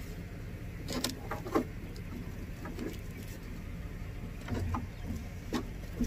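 Low rumble with a few scattered knocks and rustles: handling noise from a chest-worn camera rubbing against a shirt and strap as the wearer moves.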